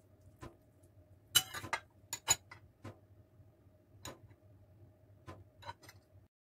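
Scattered light clicks and taps of a metal spoon against a ceramic plate as the filling is spread on a crepe, over a faint steady hum. The sound cuts off suddenly near the end.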